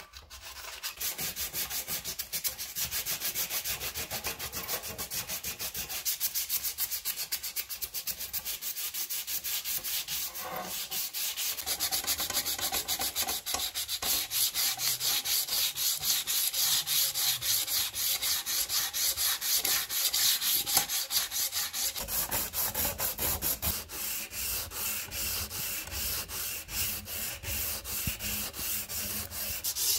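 Sandpaper rubbed back and forth by hand over the steel guard and blade of an old sword, a steady run of quick scraping strokes, taking the dark corrosion off the metal.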